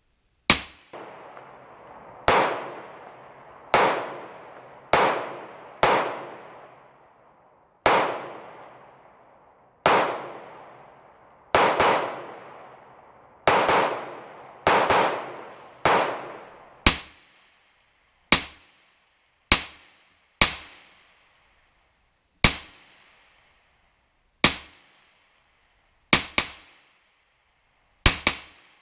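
Smith & Wesson M&P 2.0 semi-automatic pistol fired in slow, steady single shots, about twenty in all, roughly one every one to two seconds. Each sharp crack is followed by a short echoing tail.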